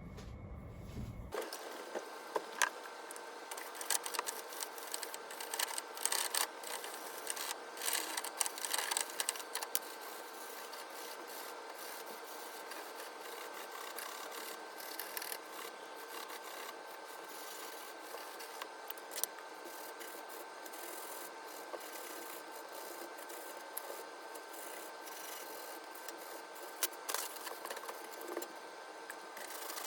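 Hand scrubbing and scraping on a hard surface in irregular rasping strokes, densest in the first ten seconds and sparser after, over a steady faint hum.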